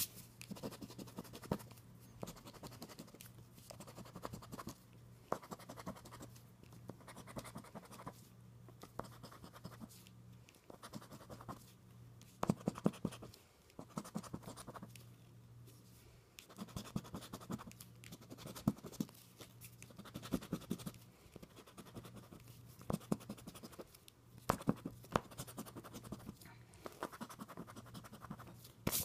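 Scratching the coating off a lottery scratch-off ticket: clusters of quick scraping strokes with short pauses between them, over a steady low hum.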